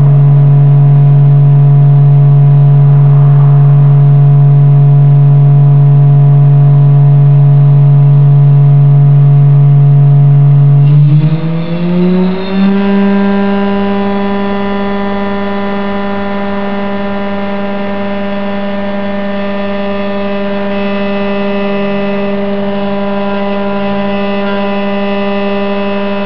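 HSD ES 721 M electrospindle running on test with a steady whine. About eleven seconds in, the whine glides up in pitch as the spindle speeds up, then holds steady at the higher speed.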